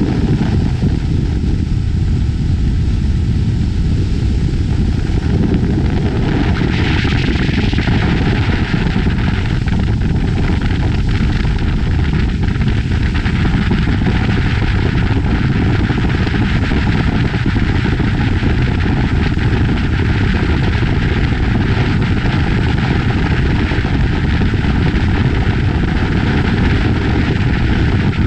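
Motorboat running at speed: a steady engine drone mixed with rushing water and wind, with no breaks. A brighter hiss of spray comes in about six seconds in.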